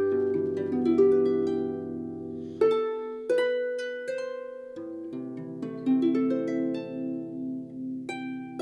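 Background music: gentle plucked-string melody, harp-like, with slowly decaying notes over held low bass notes.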